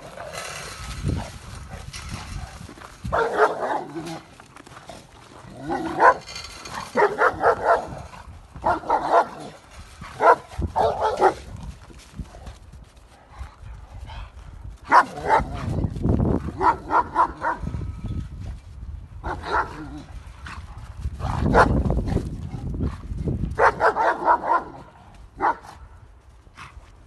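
Dogs barking in quick runs of several barks, with bursts of low rumble in between. The barking comes from a fight between a German shepherd and an American bully.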